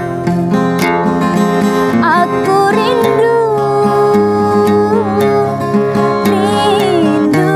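A woman singing with long held notes that waver in pitch, accompanied by a man playing an acoustic guitar.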